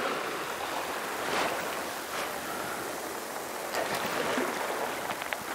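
Sea water washing against shore rocks, swelling and ebbing every second or so.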